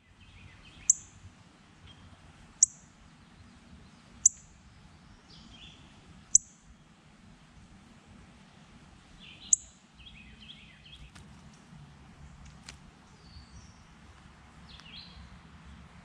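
Northern cardinal giving five loud, sharp chip calls, spaced every two seconds or so, ending about a third of the way through. Softer songs of other birds run behind.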